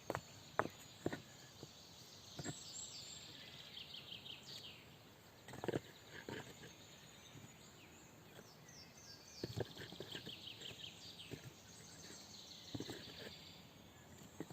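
Forest ambience: a small bird sings short, rapid trills twice, over scattered sharp clicks and knocks.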